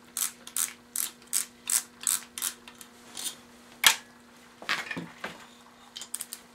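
Socket ratchet clicking about three times a second as bolts on an air compressor's pump head are turned, with one louder knock partway through and a few more scattered clicks after it.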